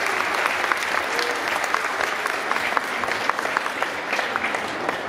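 Audience applauding: many people clapping at once in a dense, even patter.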